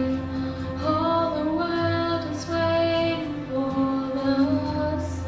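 A girl singing a solo into a microphone, holding long notes that move up and down in pitch.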